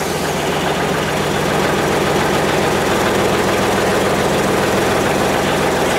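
A John Deere garden tractor's engine idling steadily, just after being started.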